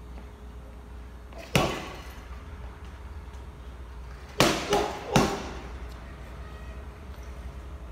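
Four sharp bangs: one about a second and a half in, then three in quick succession about four and a half to five seconds in, each dying away briefly, over a steady low hum.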